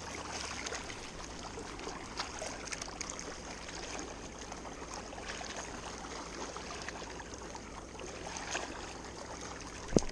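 Steady rush of flowing water, with scattered small clicks and splashes and a sharp knock right at the end.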